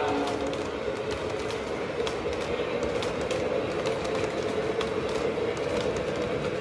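O-gauge model passenger cars rolling past on metal track: a steady rumble of metal wheels on the rails with scattered sharp clicks as the wheels cross rail joints.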